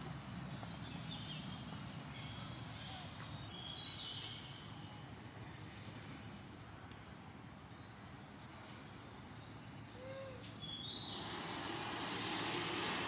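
Forest background: a steady hiss with a few short, high chirps a few seconds in and again about ten seconds in; a louder, broader hiss comes up near the end.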